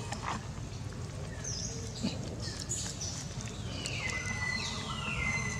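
Thin, high whistled animal calls that glide downward; the longest comes about four seconds in, falling and then holding one pitch for over a second. Under them is a low rumble with a few sharp clicks and rustles.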